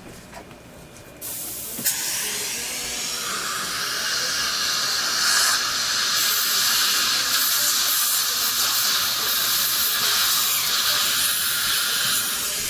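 Dental chairside equipment switched on about a second in, giving a steady, loud hiss of air and water spray, with a single click shortly after it starts.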